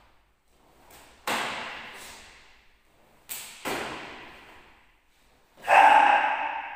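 Taekwondo uniform (dobok) snapping sharply with fast poomsae strikes: one snap about a second in and two quick ones about halfway, each ringing on in the bare room. Near the end comes the loudest sound, a short shouted kihap that echoes and fades.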